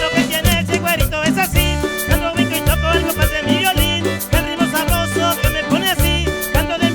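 Cumbia band playing: a bass line and percussion on a steady beat under wavering melody lines.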